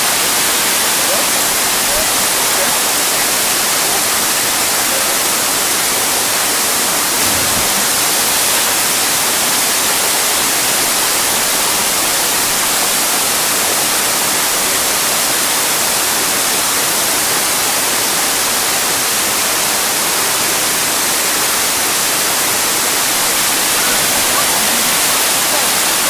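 Waterfall pouring into a rock plunge pool: a steady, loud rush of white water.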